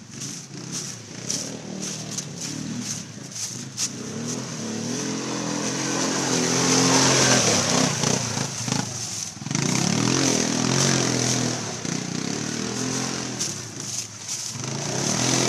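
ATV engine revving hard as the four-wheeler churns through deep mud, its rear tyre spinning and throwing mud. The revs build to their loudest about seven seconds in, drop off briefly, pick up again, and build once more near the end.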